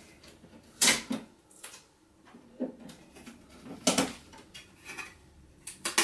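Packing tape being pulled off a plastic bean-to-cup coffee machine, with a scatter of short clicks and knocks as its plastic lids and parts are handled.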